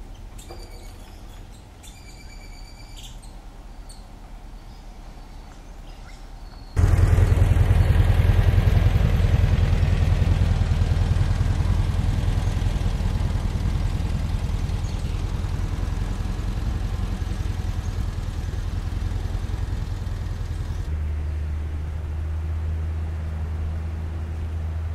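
Birds chirping over a quiet outdoor background. About seven seconds in, the engine of a 1982 Volkswagen Sedan (air-cooled flat-four) comes in suddenly as the car drives, loud at first and then slowly easing off.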